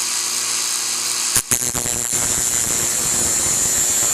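Dremel rotary tool running at high speed with a steady whine. About a second and a half in there is a brief knock, and the sound turns rougher and grittier as a twist drill bit is ground against it to sharpen the cutting edge.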